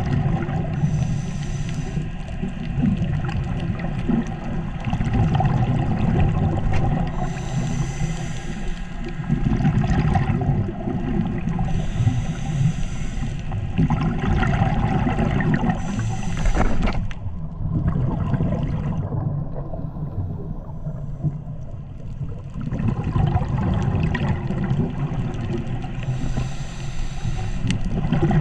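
Underwater sound of a scuba diver: a steady low rumble of water moving over the camera, with hissing bursts a few seconds apart from the diver's breathing and exhaled bubbles.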